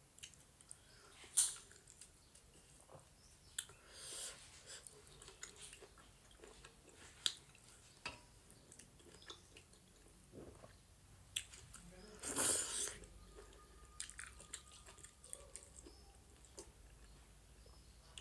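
Close-miked chewing and wet mouth sounds of a person eating goat meat with dhido: scattered smacks and clicks, with a louder, longer stretch about twelve seconds in.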